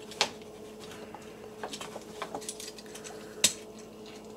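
Plastic Transformers action figure being handled and worked through its transformation: scattered light clicks and taps of plastic parts and joints. Two sharper clicks stand out, one just after the start and a louder one about three-quarters of the way through.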